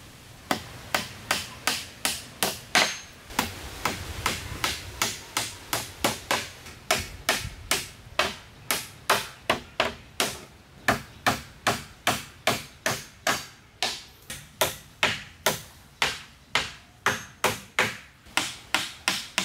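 A hand tool striking wood over and over in a steady rhythm, a little over two blows a second, each a sharp knock that dies away quickly.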